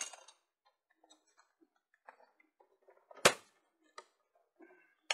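Scattered light clicks and knocks of fishing tackle being handled as spare pole rigs are got out, with one sharp, loud click about three seconds in.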